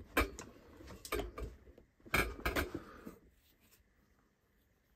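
Steel hand tools clinking and clattering against each other and the compressor, a few sharp metallic clinks over the first three seconds.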